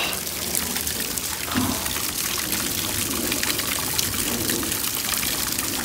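Heavy rain pouring down on wet grass and puddles: a steady wash of water with trickling.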